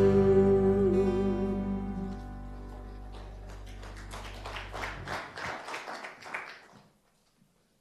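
Worship band's closing chord on acoustic guitar and keyboard ringing out and fading, its low notes stopping about five seconds in. A soft, irregular patter follows for a few seconds, then near silence.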